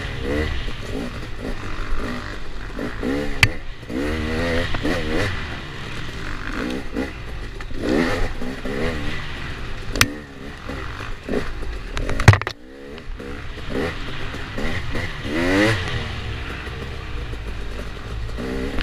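Dirt bike engine revving up and falling back over and over as it is ridden hard down a wooded single-track trail, heard from on the bike. Three sharp knocks cut through, about three, ten and twelve seconds in.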